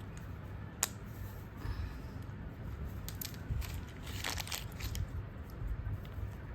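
Plastic toy train track pieces being handled and fitted together: a sharp click about a second in, then a few more clicks and rattles later on, over low handling rumble.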